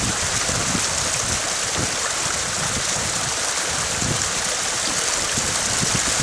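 Small mountain waterfall splashing and rushing in a steady, loud hiss, with irregular low rumbling underneath.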